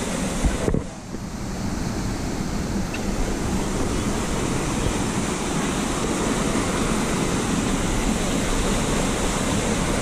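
Steady rush of a small stream cascading over rocks, a continuous even noise, briefly dipping about a second in.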